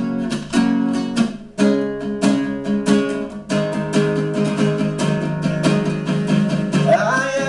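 Nylon-string classical guitar strummed hard in a fast, busy rhythm: an instrumental break between sung lines.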